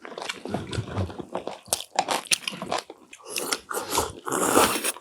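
People biting into and chewing crisp pan-fried food, a run of irregular crunches and close mouth sounds, densest near the end.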